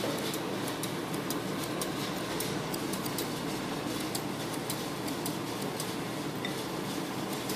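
Kitchen scissors snipping food into small pieces: a run of quick, irregular clicks over steady background noise.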